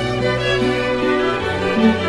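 Background music: slow, sustained string instruments, violin and cello, with the chord changing about one and a half seconds in.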